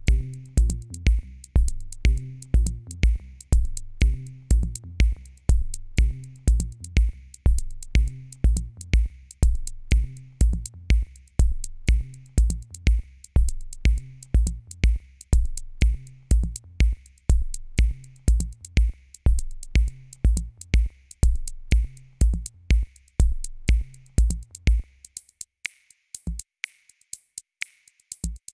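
Electronic background music with a drum-machine beat: a kick drum about twice a second under a bass line, with crisp hi-hat ticks. The kick and bass drop out near the end, leaving only the ticks.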